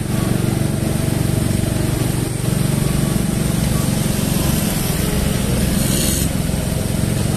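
Small motorcycle engines running steadily at low riding speed, heard from aboard a moving scooter, with a brief hiss about six seconds in.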